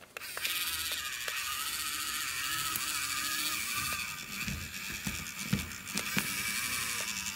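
Small electric gear motor of a miniature tracked model tractor running with a steady whine, starting abruptly just after the start, its tracks clattering over a pile of tiny bricks. Sharp clicks and knocks of the little bricks shifting under it come more often from about four seconds in.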